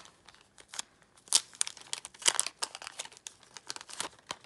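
Photocards being handled and shuffled through by hand: crinkly rustling with many sharp little clicks, the loudest a little over a second in and again just past two seconds.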